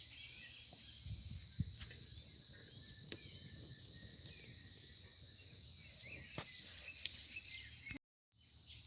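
Crickets chirring in a steady, unbroken high-pitched drone, cut off briefly by a moment of total silence near the end.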